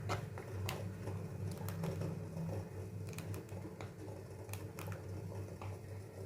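A few light clicks and soft handling sounds of cooking utensils as cheese is added to a pan of milk on the stove, over a steady low hum.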